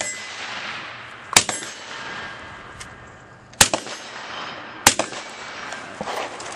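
Three rifle shots from an AR-15-style carbine, spaced about two and a quarter seconds and then a second and a quarter apart, each followed by a ringing tail. A few weaker knocks come near the end.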